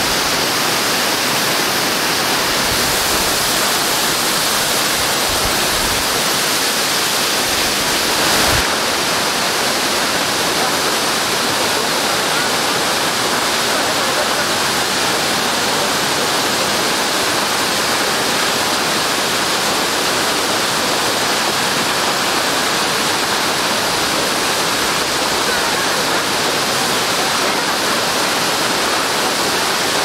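A tall waterfall, about 100 metres high, pouring onto rocks: a steady, loud rush of falling water heard close to its base.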